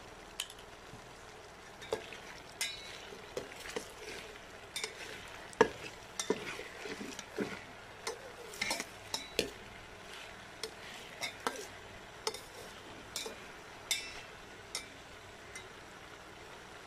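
Metal slotted spoon stirring diced potatoes in a steel pot, with irregular clinks and knocks of spoon on pot over a faint sizzle of the potatoes frying in hot oil. The knocks stop about a second before the end.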